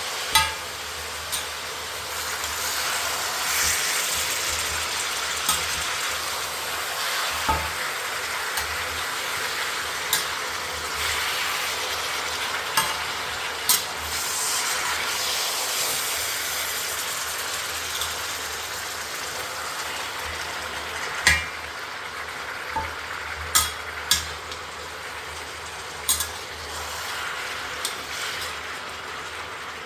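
Mutton karahi frying in the pan while being stirred: a steady sizzling hiss broken by about a dozen scattered sharp knocks.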